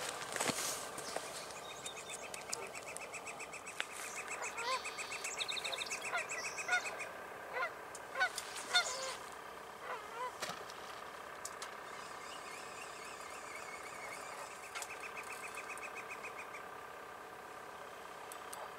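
Geese honking in a scattered run of short calls, thickest in the middle of the stretch, over a steady faint background. A fast, even rattling trill comes in twice, early on and again near the end.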